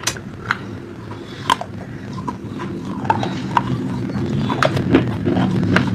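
Crunchy food being chewed close to the microphone: scattered sharp crunches and clicks over a steady low rumble that grows louder about halfway through.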